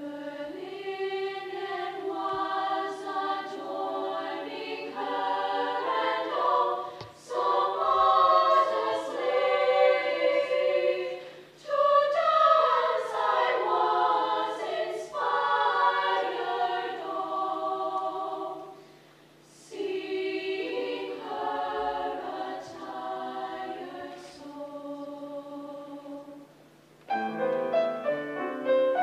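Women's choir singing a British folk song in parts, in phrases with short breaks between them. A piano comes in near the end.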